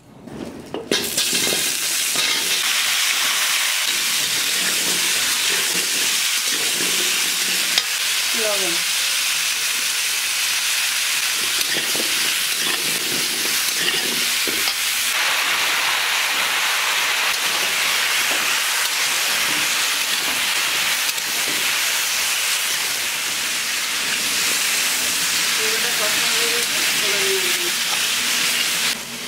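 Food frying in hot oil, a steady loud sizzle that starts suddenly about a second in and drops off near the end.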